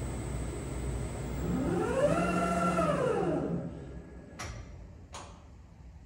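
DCM3 diamond cut wheel lathe finishing its shadow-cut pass: steady machine running noise with a motor whine that rises, holds and falls as the tool carriage moves, then the machine stops about three and a half seconds in, followed by two sharp clicks.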